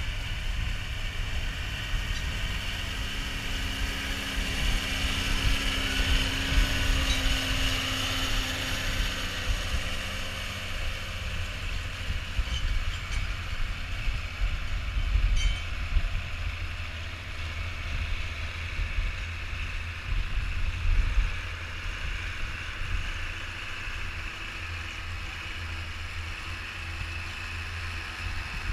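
Tractor engine running steadily, with a strong low rumble.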